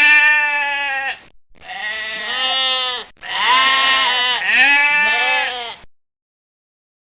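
Goat bleating: a run of long, wavering bleats, one after another, that cuts off suddenly about six seconds in.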